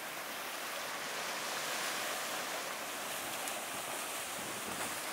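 Steady rushing noise of sea surf washing in, swelling slightly about two seconds in.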